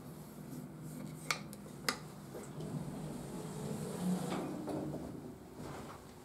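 Hitachi six-passenger elevator: two sharp clicks a little over half a second apart, then the car's sliding doors run with a rumble and a low hum that swells about four seconds in and dies away.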